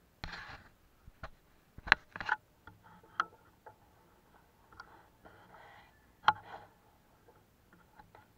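Close handling noise from a hunter shifting with his gun: a few sharp clicks and short rustles scattered over quiet woods, the loudest clicks about two seconds in and again past six seconds.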